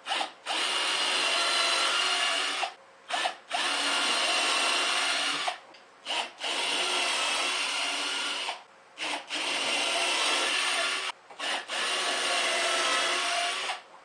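Cordless drill/driver running in five bursts of about two seconds each, with short pauses and quick blips between them, driving screws through a plywood back panel into a wooden frame.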